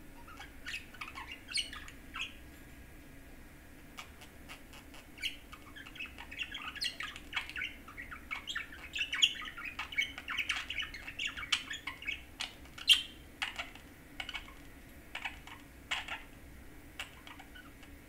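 Budgerigar warbling: a long run of quick chirps, chatter and sharp clicks, densest through the middle, with one loud click a little past the middle.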